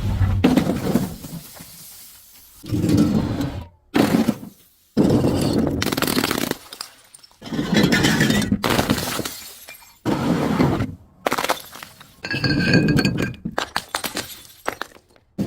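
Glass bottles shattering one after another, about eight separate crashes, each a sudden smash trailing off into crunching, tinkling shards. One break late on leaves a clear glassy ring.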